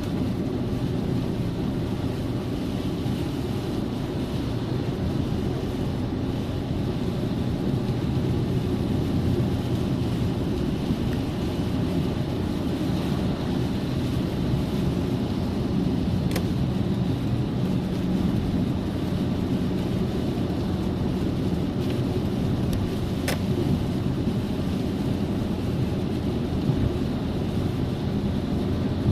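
Steady low rumble of traffic or vehicle noise, with a faint hum in it. There are two brief clicks, one past the middle and one about three quarters of the way in.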